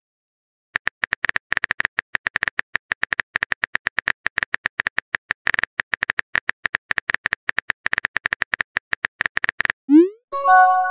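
Rapid keyboard-typing clicks, several a second, run for about nine seconds. Near the end they give way to a quick rising swoop and a short chime, the sound of a chat message arriving.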